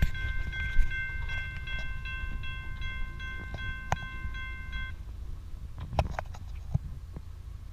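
Railroad grade-crossing warning bell ringing rapidly as the signals flash and the gates come down, stopping about five seconds in. A low steady rumble with a few scattered clicks runs underneath.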